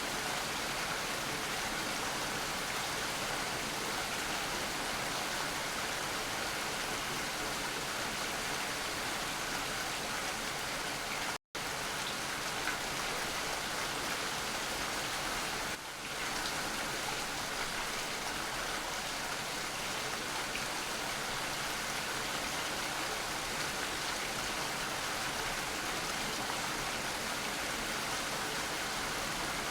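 Steady heavy rain, a dense even hiss of drops. It cuts out completely for an instant about a third of the way through, then briefly dips in level about halfway.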